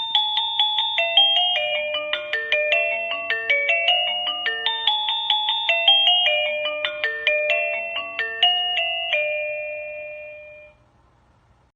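Wireless doorbell chime receiver playing one of its built-in electronic melodies: a long tune of bell-like notes, about three a second, that stops near the end.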